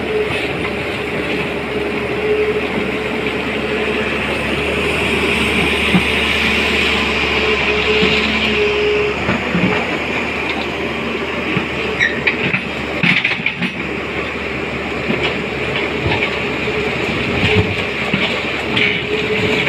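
SANY crawler excavator working: the diesel engine runs steadily under load with a steady whine that drops out now and then as the bucket digs gravel and mud. About twelve seconds in come several sharp knocks and clatters of stones against the steel bucket.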